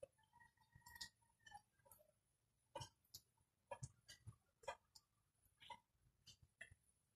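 Near silence broken by faint, irregular clicks and ticks, about two a second, with a faint steady high tone in the first second and a half.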